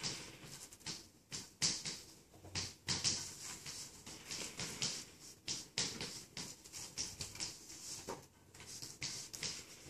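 Irregular soft rustling and clicking, a few short noises a second, with no steady tone.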